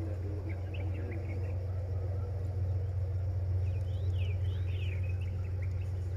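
Steady low rumble of a diesel-electric locomotive, the D19E, still unseen inside the tunnel as it approaches. Small birds chirp in two short spells, about half a second in and again around the middle.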